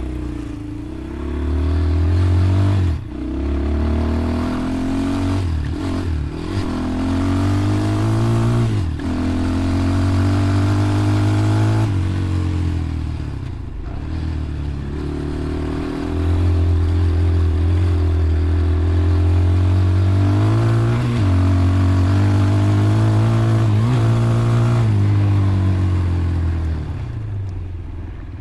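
Motorcycle engine under way, revving up in pitch over a few seconds and then dropping back, again and again, as the throttle is opened and rolled off or gears are changed. It runs steadier for a few seconds past the middle, then eases off near the end.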